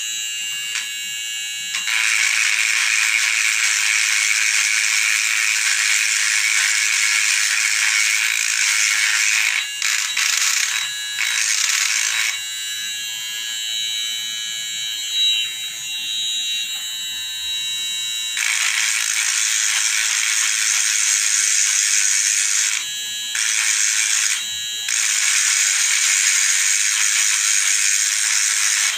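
Small handheld electric motor tool buzzing with a rattle, its bit working against metal; it stops and starts again several times.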